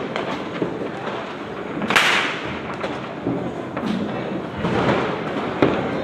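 Diwali firecrackers going off: one loud bang about two seconds in with a trailing echo, then a few fainter bangs and scattered cracks near the end, over a steady background noise.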